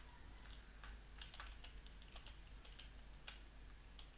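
Faint computer keyboard typing: a run of quick, irregular key clicks as text is entered.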